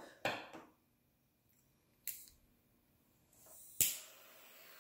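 Triple-jet butane torch lighter being handled and lit: a few small clicks as it is picked up and its lid flipped open, a soft hiss of gas, a sharp ignition click just under four seconds in, then the faint steady hiss of its jet flames burning.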